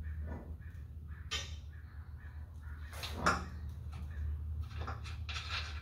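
Wrench work on a truck's front sway bar mounting bolts: a few short metal clanks and scrapes, the loudest about three seconds in, over a steady low hum.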